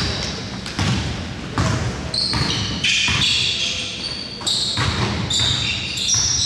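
A basketball bouncing repeatedly on a gym floor during play, with short high sneaker squeaks on the court.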